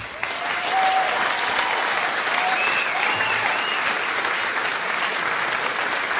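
Steady applause from a crowd, starting abruptly, with a few faint short cries over it in the first half.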